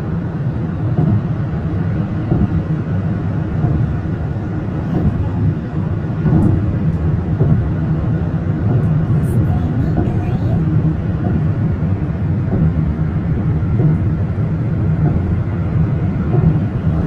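Steady low rumble of tyres and engine heard inside a car cruising at highway speed.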